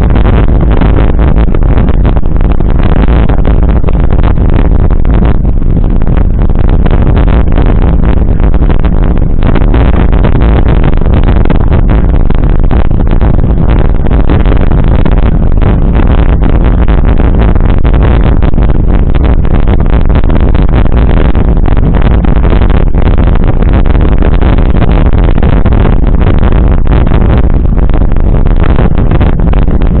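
Loud, steady wind rumble buffeting the microphone of a handlebar-mounted camera on a moving mountain bike, with the crackle of knobby tyres rolling over a gravel dirt road.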